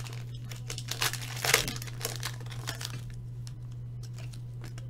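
Foil wrapper of a trading-card pack crinkling and tearing as it is pulled open by hand, loudest at the start and again about a second and a half in, dying down to a few faint clicks after about three seconds.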